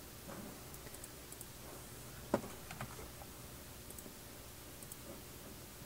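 Faint, scattered clicks of a computer mouse, with one sharper click a little past two seconds in.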